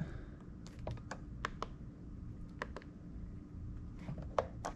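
Sharp plastic clicks from an RC radio transmitter being handled, its toggle switches flicked and control sticks moved: about a dozen clicks in small clusters.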